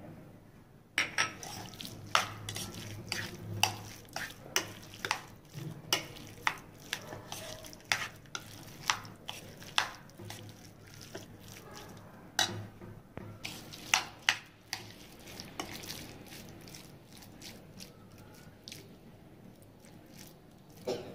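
Metal spoon stirring a potato and lamb's quarter pickle in a bowl, knocking and scraping against the bowl in irregular sharp clinks, about one or two a second, that thin out after about fifteen seconds.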